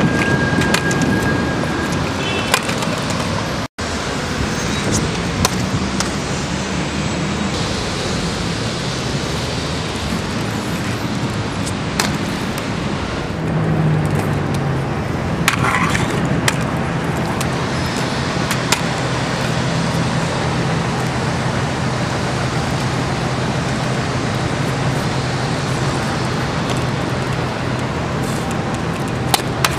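Stunt scooter riding over stone paving and granite ledges: wheels rolling, with a handful of sharp clacks as the scooter lands and strikes the stone. Steady city traffic noise underneath.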